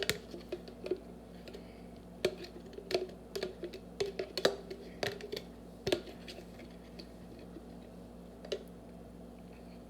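A tablespoon scraping and tapping as it scoops Miracle Whip from a jar and knocks it off into a mixing bowl: irregular small clicks and knocks, busiest in the first six seconds and then sparse.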